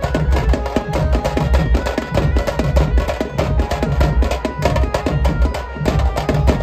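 Loud Indian street-procession band music: fast, driving drum strokes over a heavy bass, with a held melody line on top.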